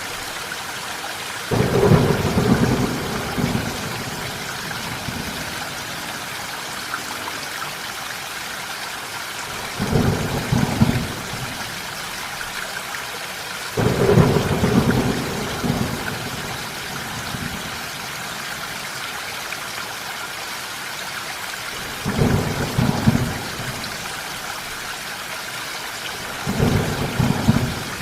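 Steady rain falling, with five separate rolls of thunder breaking in over it. Each roll starts suddenly, rumbles low for one to two seconds and fades back into the rain.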